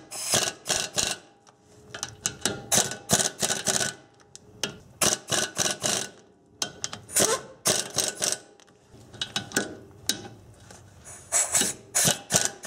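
Pneumatic air ratchet run in repeated short bursts with brief pauses, tightening the bolts that draw a front wheel bearing into the steering knuckle.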